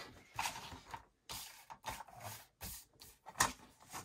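Cardstock being slid and tapped into place on a plastic paper trimmer, with a ruler moved alongside: a series of short paper rustles and light knocks. The loudest knock comes about three and a half seconds in.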